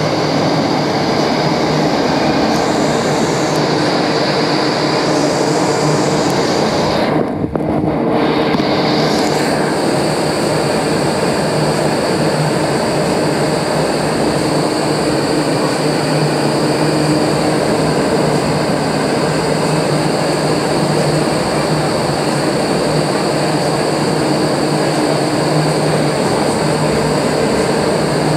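Vertical wind tunnel running at flying speed: a loud, steady rush of air from its fans with a low hum underneath, dipping briefly about seven seconds in.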